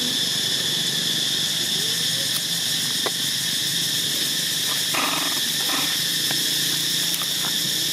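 Steady, high-pitched insect drone in several pitches at once, going on without a break. A few faint clicks and a brief rustle-like noise come about five seconds in.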